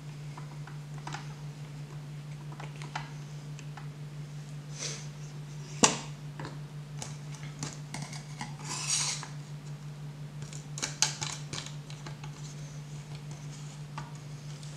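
Clicks and knocks of a guided-rod knife sharpener being handled: a whetstone fitted onto the steel guide rod and the rod set over the knife clamp. There is one sharp knock about six seconds in, a short scrape around nine seconds and a quick cluster of clicks near eleven seconds, over a steady low hum.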